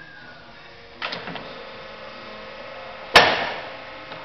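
MAS radial drilling machine worked from its drill-head controls: a sharp clunk about a second in, after which the machine hums steadily, then a loud metallic clang about three seconds in that rings on briefly.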